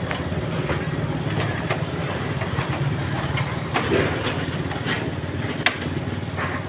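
Plastic side cover of a photocopier being pushed and seated into place: a scattering of light clicks and knocks, the sharpest about five and a half seconds in, over a steady low engine-like rumble.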